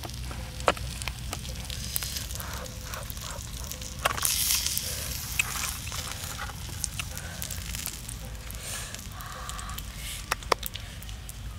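Small wood cooking fire crackling with sharp pops under a metal pan of frying fish, over a steady sizzle that swells into a louder hiss about four seconds in.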